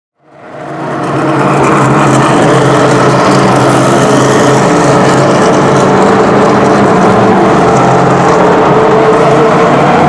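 Le Mans prototype race car engines running at a steady, unchanging pitch as the cars drive down the pit lane at the pit-lane speed limit, the sound fading in over the first second and a half.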